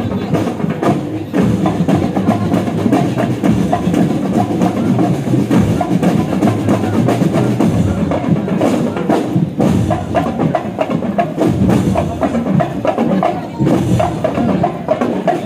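Marching band's drum line playing a parade cadence, snare and bass drums striking in quick, close-packed beats.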